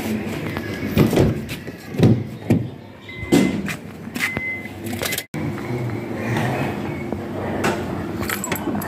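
Car door and bonnet being handled: several knocks and clunks, with short high chime beeps from the open driver's door while the key is in the ignition. After an abrupt cut a little past the middle, a steady low hum runs on.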